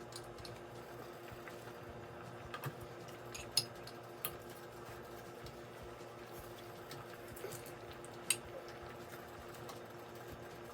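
A few sharp clinks and taps of a utensil against a pot and dish as shredded chicken is put back into a pot of soup, over a steady low hum.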